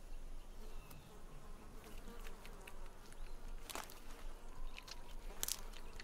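Flies buzzing faintly, with a couple of sharp clicks about midway and near the end.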